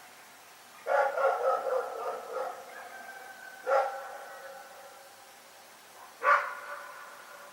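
Dog barking: a quick run of barks about a second in, then two single barks a few seconds apart.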